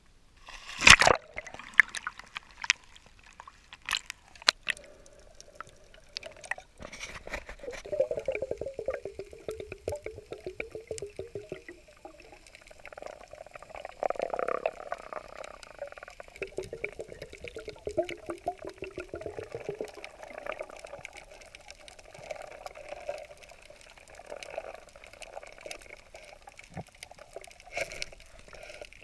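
A splash as a diver drops from a boat into the sea about a second in, then muffled underwater sounds with a wavering, gurgling bubbling.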